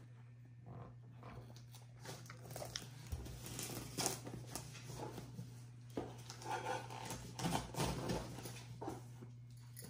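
Plastic-wrapped, taped parcel being worked open by hand: irregular crinkling, rustling and sharp clicks of tape and plastic wrap, getting busier after a few seconds, with a brief squeaky screech about two-thirds of the way through. A steady low hum sits underneath.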